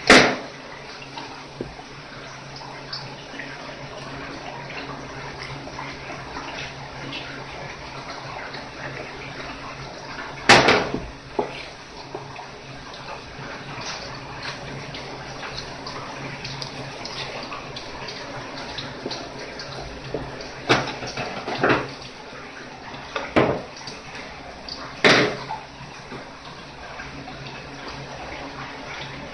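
Water running steadily from a tap, with several sharp knocks: one at the very start, one about a third of the way through and a few close together later on.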